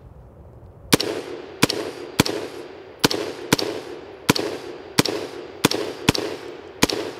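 Brownells BRN-Proto AR-15 replica rifle firing 5.56 mm M193 ball in rapid semi-automatic fire. About ten sharp shots, starting about a second in, come roughly every two-thirds of a second, each trailing off in a short echo.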